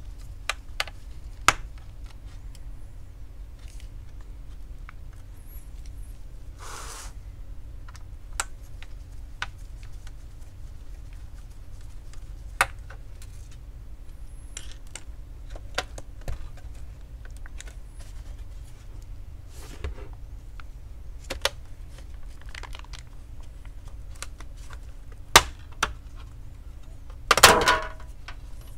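Scattered light clicks and taps as a laptop's metal bottom cover is worked loose along its edge by gloved fingers, with a brief rustle about seven seconds in and a louder clatter near the end as the cover is lifted away from the chassis. A faint steady hum runs underneath.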